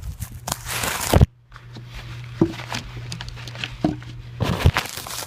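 Footsteps crunching through deep snow, with irregular loud bursts of scuffing and rustling.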